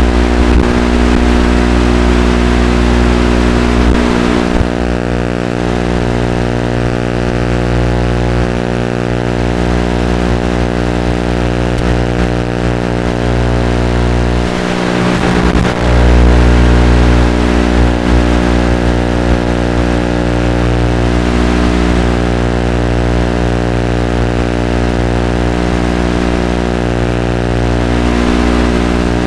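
Electric motor and geartrain of an Axial Scorpion RC crawler driving, heard from its onboard camera over a steady electrical buzz. The drive stops for about a second halfway through, then picks up again.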